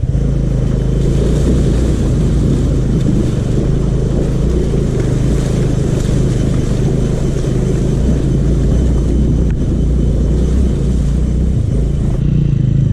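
Motorbike engine running steadily while riding over rough ground, with a constant rushing noise over the low engine drone.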